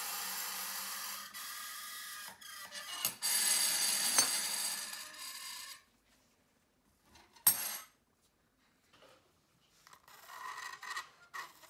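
Metal utensils, a spoon among them, chattering on a slab of dry ice. The warm metal turns the ice to gas on contact, lifts and drops back over and over, giving a rapid metallic rattle. It comes in several bouts with gaps, with one sharp clink midway.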